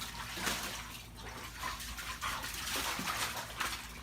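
Water splashing and sloshing as a dog moves about in a shallow foldable PVC pet pool, in irregular splashes.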